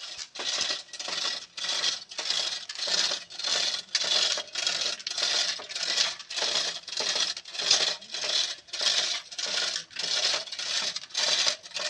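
Metal clinking and rattling in a steady, even rhythm of about two clinks a second.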